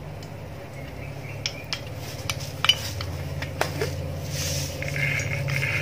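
Mustard seeds frying in hot sesame oil in a metal pan: a light sizzle with scattered sharp pops and clicks as the seeds start to splutter, over a steady low hum.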